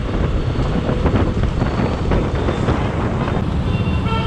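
Wind buffeting the microphone over the steady running of a KTM Duke motorcycle and surrounding road traffic as the bike slows to the kerb, with a brief high-pitched tone near the end.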